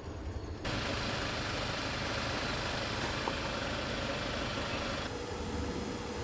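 Camper van engine running with steady road and wind noise, the sound changing abruptly about a second in and again near the end.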